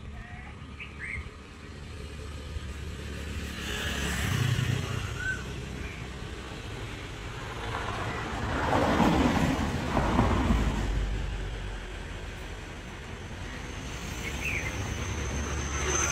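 Outdoor ambience: a steady low rumble that swells twice into a broad rushing noise, with a few short bird chirps scattered over it.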